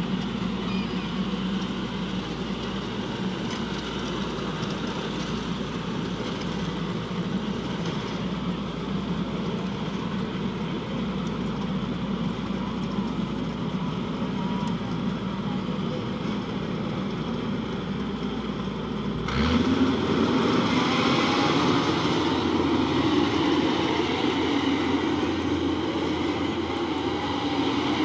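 Yanmar AW82V rice combine harvester running steadily. About two-thirds of the way through, the sound changes abruptly and becomes louder and brighter.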